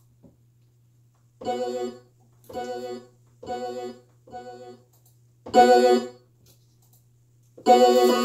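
Keyboard chords with an organ-like tone: five short chord stabs about a second apart, then a chord held from near the end.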